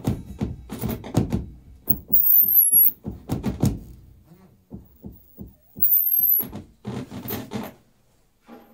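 Live free-improvised music played on percussion: fast, irregular drum and percussion strikes and thuds, with two high descending squeals above them. The playing stops about eight seconds in.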